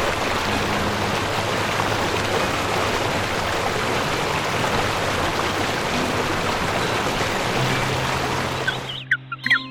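A loud, steady rushing noise that cuts off about nine seconds in, with faint music beneath it; chirps begin right after it stops.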